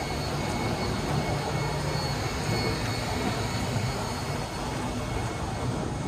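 A steady engine rumble with a noisy wash over it, holding evenly throughout without sudden events.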